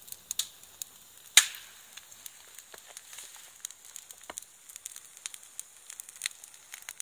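Bonfire of dry conifer branches and needles catching and crackling, with frequent sharp pops and one loud pop about a second and a half in.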